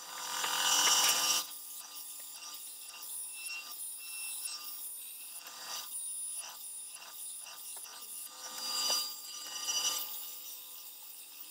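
Central Machinery 9-inch benchtop bandsaw running steadily while its blade cuts a 5 mm carbon fiber plate with a rasping sound. The cut is loudest for about the first second and a half and again around nine seconds in, with short, repeated strokes of cutting in between as the plate is fed and turned along a curve.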